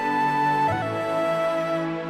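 Background music: a slow melody of long held notes over a low bass, moving to a new note about two-thirds of a second in.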